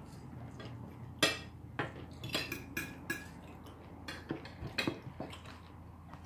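Cutlery clinking against dinner plates during a meal: about ten sharp, irregular clinks, a few ringing briefly.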